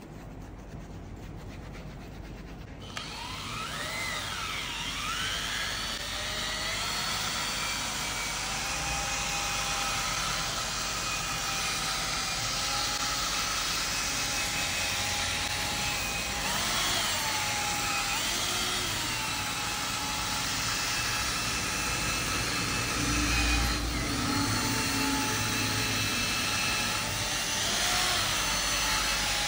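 A vacuum cleaner starts about three seconds in and keeps running, its motor whine wavering up and down in pitch over a steady rush of air.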